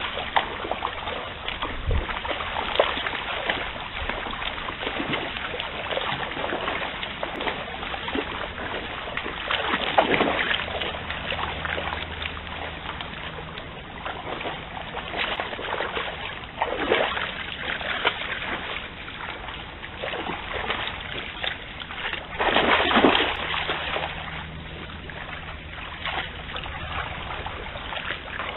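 Red deer wading through a shallow stream, their legs splashing and sloshing in the water over a steady watery rush, with louder bouts of splashing about ten, seventeen and twenty-three seconds in.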